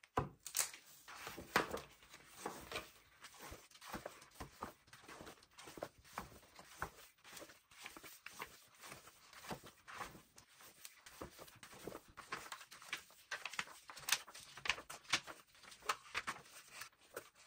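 Pages of a large paperback sticker activity book being turned and handled by hand: a run of quick paper rustles, flaps and light taps.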